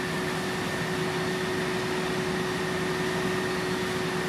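Fire engine pump running steadily to supply charged hose lines: a constant hum with two held tones over an even hiss.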